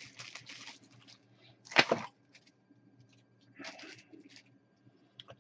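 Plastic model-kit sprues being handled and swapped, rustling, with one sharp plastic clack a little under two seconds in and more rustling about a second and a half later.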